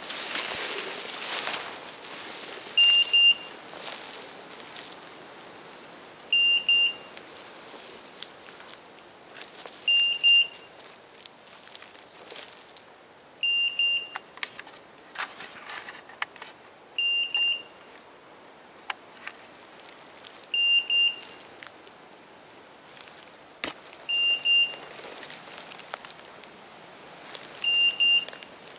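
Hunting dog's beeper collar sounding a short double beep at a steady interval, about every three and a half seconds, the signal a handler follows to locate the dog in thick cover while it works a woodcock. Brush and leaves rustle throughout as someone pushes through the undergrowth, loudest at the start.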